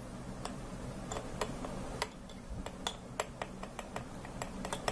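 A metal spoon stirring ground sulfur and olive oil into a paste in a small glass bowl, clicking and ticking against the glass irregularly, two or three times a second.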